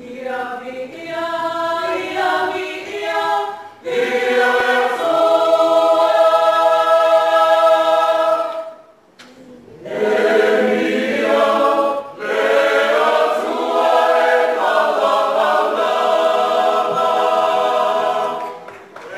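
Samoan church youth choir of mixed men's and women's voices singing together, in long sustained phrases broken by brief pauses.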